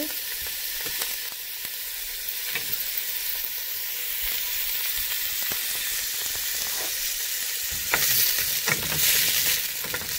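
Chopped red onion sizzling in a little olive oil in a stainless steel pot over medium heat, just starting to cook. Near the end a wooden spatula starts stirring, scraping and turning the pieces against the pot.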